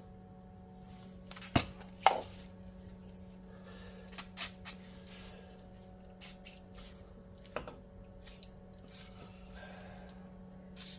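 Scattered sharp clicks and knocks of an aerosol can and tools being handled, then a short hiss of penetrating spray near the end, applied to bolts to soak. A steady low hum runs underneath.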